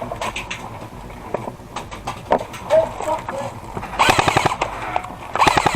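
Airsoft electric rifle firing on full auto: two short rapid bursts, the first about four seconds in and the second near the end, with a few fainter scattered shots before them.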